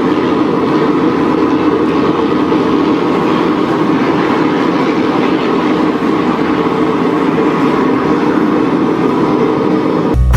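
A machine running steadily, a constant mechanical noise with no pauses or changes in speed.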